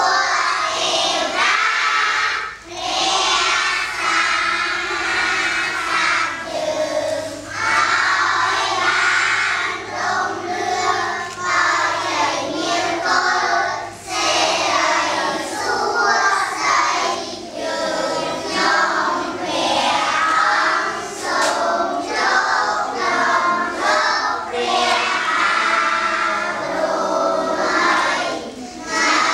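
A class of young schoolchildren singing together in unison, many voices in one continuous song.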